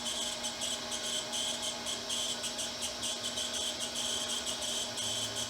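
Stripmeister motor-driven wire stripper running as insulated copper wire feeds through it. It makes a steady hum with a fast, high chirring over it.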